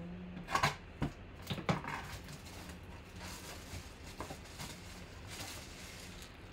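Plastic shrink-wrap being slit and peeled off a small cardboard box. A few sharp crackles come in the first two seconds, then a softer crinkling rustle.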